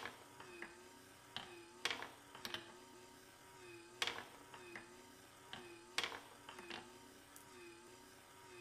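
Marbles running through a wooden marble machine. About every two seconds a marble clacks onto the wooden track, then rattles with a few lighter knocks as it is kicked by the test bump into the four-hole funnel. A faint, wavering hum sits underneath.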